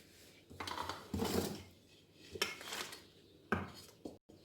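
A spoon or spatula scraping and knocking against a mixing bowl in three separate bursts, as whipped cream is worked in the bowl.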